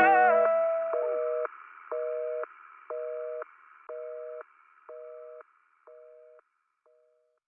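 The song's last notes die away, then a telephone busy signal takes over: a two-tone beep sounding about once a second, seven times, each one fainter than the last.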